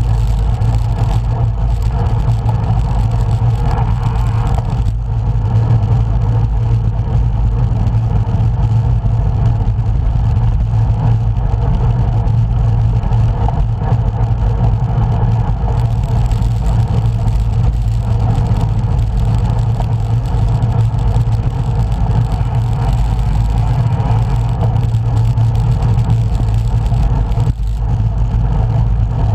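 Steady wind rumble and road noise of a bicycle ride, recorded from a camera on the moving bike.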